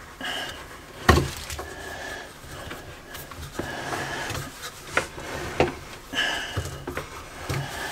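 Hands working a rubber V-belt onto the drive pulleys of a homemade belt sander and tensioning it: rubbing and scraping of belt on pulley and machine, with a sharp knock about a second in and several lighter knocks after.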